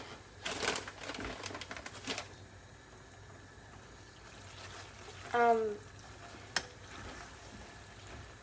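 A spoon stirring and scraping through cheese sauce in a pot, with rough scraping from about half a second to two seconds in. About five seconds in there is a short squeak or whine that falls slightly in pitch, followed by a single click.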